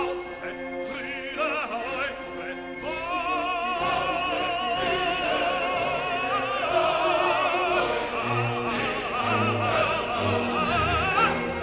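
Background music: a voice singing in operatic style with strong vibrato over orchestral accompaniment.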